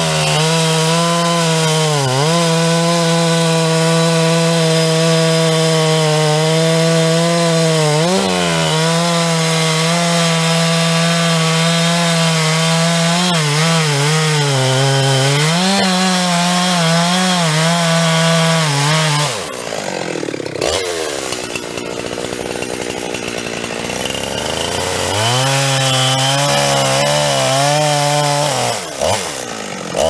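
Two-stroke chainsaw cutting into the base of a standing tree at full throttle, its pitch dipping and recovering as the chain bogs in the wood. About two-thirds of the way through it drops to idle for several seconds, then revs up and cuts again.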